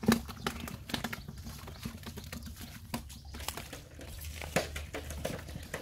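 Irregular wet slaps, splashes and flicks in shallow muddy water, with the loudest splash right at the start: stranded fish flopping in the mud puddles and hands grabbing them, over a low steady hum.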